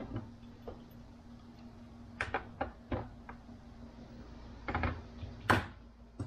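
Hand tools and small parts being handled and set down: a scattering of short clicks and knocks, the loudest about five and a half seconds in. A steady low hum runs underneath.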